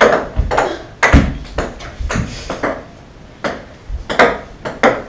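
Ping-pong ball bouncing on a wooden tabletop, a run of sharp, irregularly spaced clicks.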